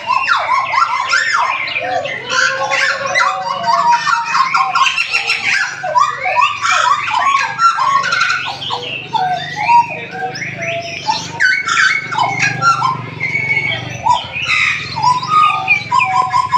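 Papuan (hooded) butcherbirds singing together: a dense, unbroken stream of varied whistled and chattering phrases that overlap one another.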